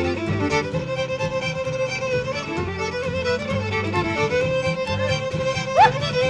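Two fiddles playing an Irish traditional tune live, backed by acoustic guitar, with a steady held note under the melody. Near the end a short upward swoop stands out as the loudest moment.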